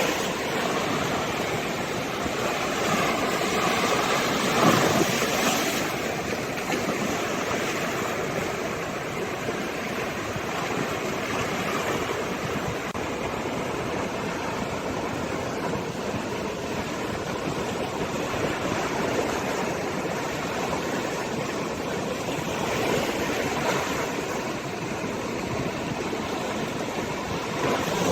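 Sea waves washing ashore: a continuous rush of surf that swells and falls back, with a sharper splash of a breaking wave about five seconds in and another swell near the end.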